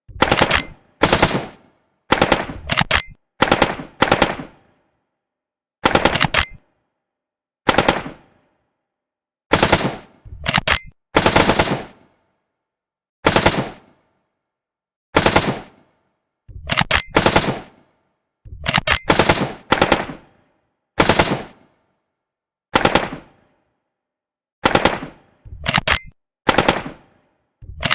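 Gunfire sound effect: about twenty short bursts of rapid automatic fire, each lasting a fraction of a second, separated by dead silence at irregular intervals of half a second to two seconds.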